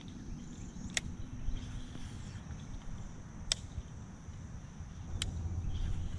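Insects buzzing in a steady high-pitched drone, broken by three sharp clicks about one, three and a half and five seconds in.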